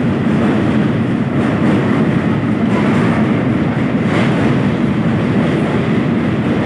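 Train running across a steel truss rail bridge, heard from on board: a loud, steady rumble of wheels on the rails with a few faint knocks.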